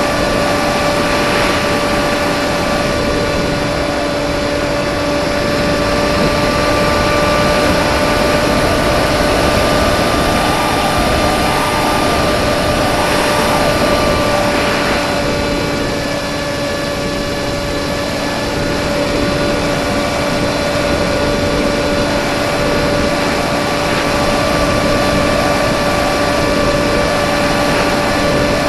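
Radio-controlled plane's motor and propeller running steadily in flight, heard from the plane itself: an even pitched drone over a constant rush of air.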